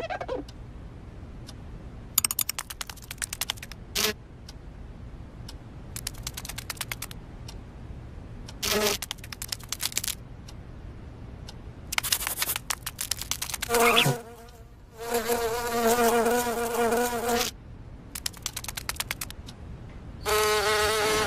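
Cartoon insect sound effects: several short trains of rapid clicking, and twice a pitched buzzing drone of an insect's wings lasting a couple of seconds, over a low steady background hum.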